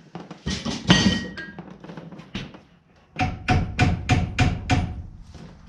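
Hammer blows on a small steel rebar hinge piece as it is knocked square: a few strikes about a second in, then a run of about six evenly spaced blows, roughly three a second, with a faint metallic ring.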